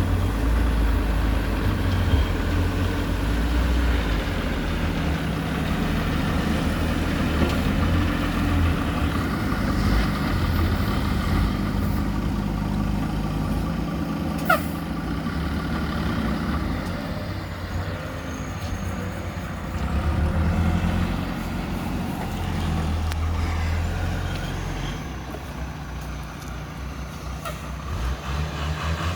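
JCB 3DX backhoe loader's diesel engine running under working load while it digs and loads mud into a dump truck, its level rising and falling as the hydraulics work. A single sharp click about halfway through.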